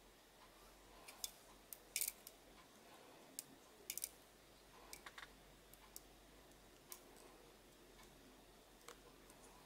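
Scattered faint, sharp sticky clicks as soft slime candy is pulled and stretched between two wooden sticks, a dozen or so irregular ticks with the loudest a couple of seconds in and around four seconds in.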